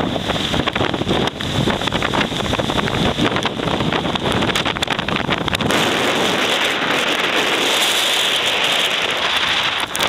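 Strong typhoon wind buffeting the microphone, heavy low rumbling gusts for the first five or six seconds. After that the rumble eases, leaving a steady hiss of wind.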